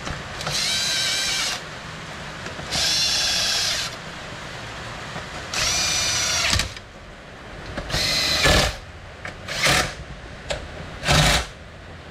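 Cordless drill/driver motor whining in three steady bursts of about a second each, then three shorter bursts near the end.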